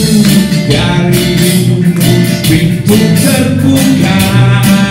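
A live band playing a reggae-flavoured musical setting of a poem, with guitar.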